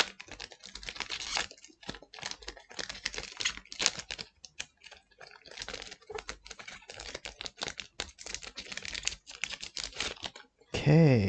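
Trading cards and foil booster pack wrappers being handled: a dense, irregular run of crinkling and clicking.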